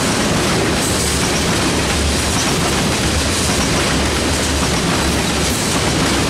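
A freight train of tank cars passing close by at speed: a steady, loud rolling noise of steel wheels on the rails with a low rumble.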